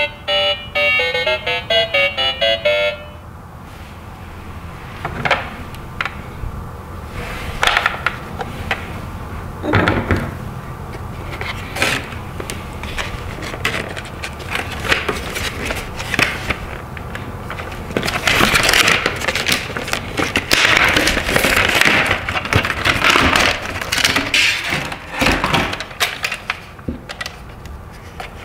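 A short electronic tune ends about three seconds in. Then clear plastic blister packaging crackles, clicks and cracks as a toy steam locomotive is pulled out of it, with a longer, louder stretch of crinkling near the middle.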